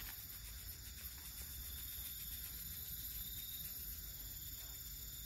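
Faint, steady chirring of crickets at night, with a low, steady rumble underneath.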